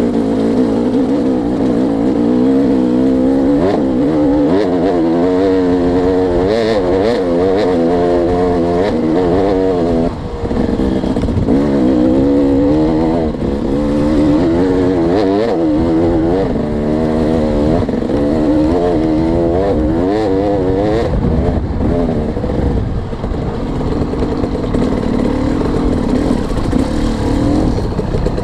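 Dirt bike engine revving up and down under load on a steep rocky hill climb, the throttle opened and closed again and again. It dips briefly about ten seconds in and settles to a steadier, lower note near the end.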